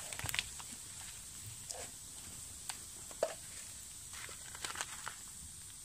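Wood campfire crackling, with scattered sharp pops over a faint hiss, along with the crinkle of a plastic instant-meal pot and its packaging being handled.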